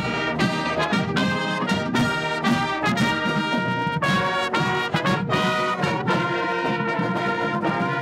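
Marching band brass section of trumpets, mellophones and sousaphones playing together in sustained chords, the notes shifting every second or so.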